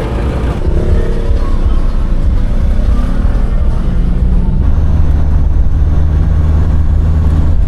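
Phonk background music with a deep, heavy bass. About two-thirds of the way through, the bass settles into one long held note.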